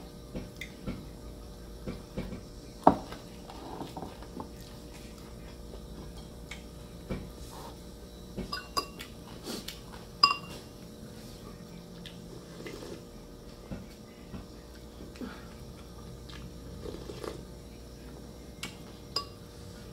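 A metal spoon and hands clinking and knocking against ceramic bowls during a meal. There is one sharp knock about three seconds in and a few ringing clinks around the middle, with small taps and chewing in between.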